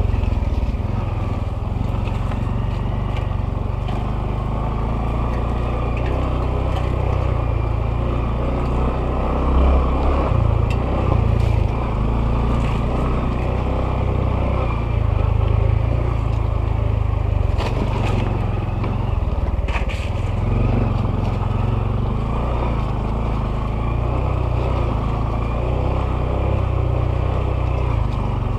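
Honda CT125's single-cylinder four-stroke engine running steadily as the motorcycle rides along a dirt trail, with a few sharp knocks partway through.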